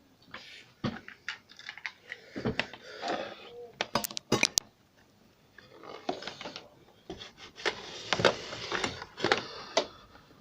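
Handling noise from small hard parts: irregular clicks, taps and scraping. A few sharp clicks come about four seconds in, and a longer stretch of scraping and rustling comes near the end.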